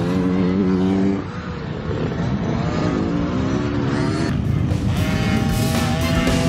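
Small youth dirt bike engine revving up and down as the bike pulls away and rides off. Music comes in over it near the end.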